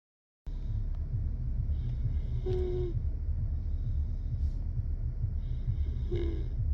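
A sleeping pet snoring, with a short high whistle on the breath twice, about three and a half seconds apart, over a steady low rumble.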